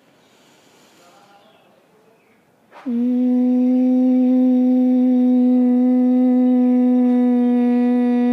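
A faint deep in-breath, then from about three seconds in a woman's loud, steady hum on one held pitch: the exhaled humming of Bhramari pranayam (bee breath).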